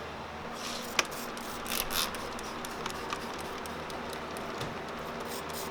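Scattered light clicks and scrapes of small hand tools and parts being handled, with one sharp click about a second in, over a steady low hum.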